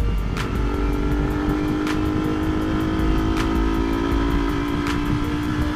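Yamaha R15 sportbike's single-cylinder engine running at a steady cruise, with wind rushing over the camera. A faint sharp tick recurs about every second and a half.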